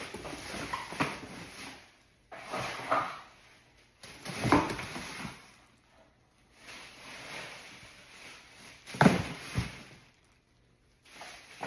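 Cookware pieces and packaging being put back into a cardboard box: bursts of rustling and handling with several sharp knocks, the loudest about nine seconds in.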